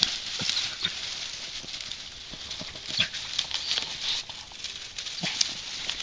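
Dry grass, twigs and briars crunching and crackling underfoot and as beagles push through the thicket, with irregular sharp snaps of breaking stems.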